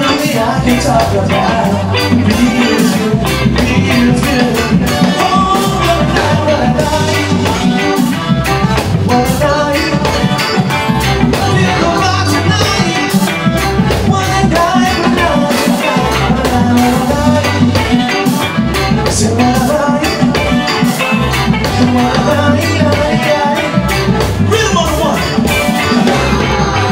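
Live reggae band playing: electric guitar, keyboards and drum kit over a steady, repeating bass line.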